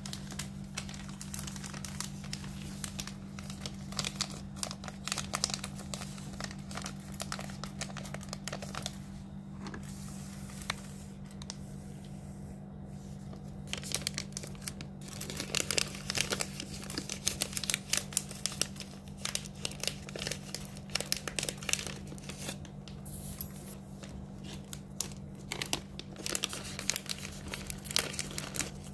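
Cats eating dry kibble from steel bowls: rapid, uneven crunching clicks, thinner for a few seconds partway through and busiest in the latter half, over a steady low hum.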